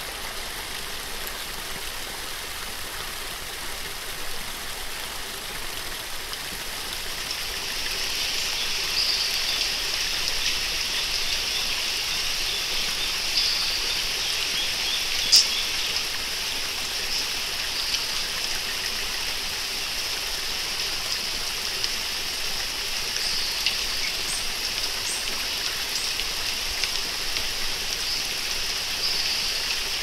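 Steady rushing of falling water from a waterfall, an even hiss without pauses. A high steady buzz grows in about seven seconds in, and a single sharp click comes near the middle.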